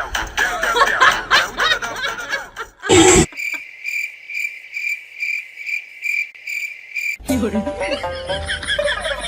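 A short loud burst about three seconds in, then a cricket chirping steadily, about three chirps a second, for some four seconds, stopping abruptly as music starts. Before the burst, a busy mix of voices and music.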